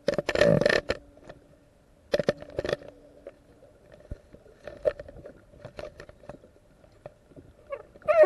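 Fishing line running through fingers, heard from the camera hanging on the line: a loud rubbing squeal in the first second, shorter bursts a couple of seconds in, then scattered faint scrapes and clicks over a low steady hum.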